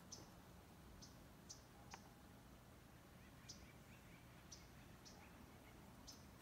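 Near silence: faint outdoor room tone with about eight short, faint high chirps scattered irregularly.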